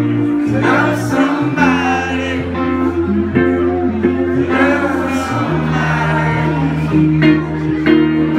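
Live band music: a woman singing lead over acoustic guitar and held low bass notes.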